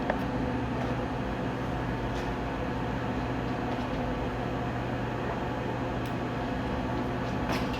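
Steady machinery hum with several fixed low tones, an electric motor running continuously without change.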